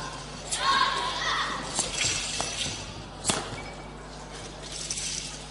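Sharp slaps and stamps from a wushu changquan routine: hand strikes and feet hitting the competition carpet. There are a few lighter hits in the first two and a half seconds and one loud, crisp slap a little after three seconds in, over the murmur of voices in a large hall.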